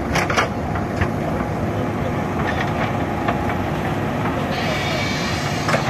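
JCB backhoe loader's diesel engine running under load as it digs out soil, with a few sharp metallic knocks from the bucket and arm. A louder hiss joins about four and a half seconds in.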